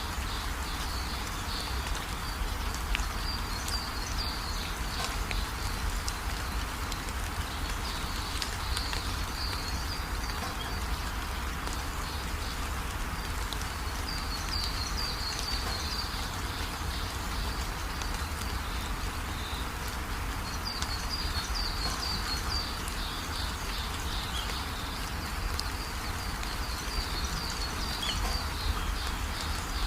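Steady rain falling, with bouts of high chirping calls coming and going every few seconds over it.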